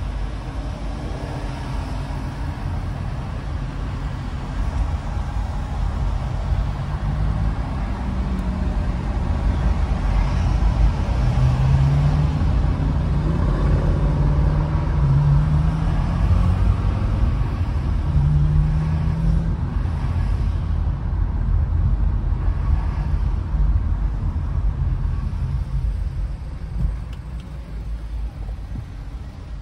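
A car driving in traffic: steady engine and road rumble, with a low engine note rising and falling in the middle. It grows quieter near the end as the car slows to a stop.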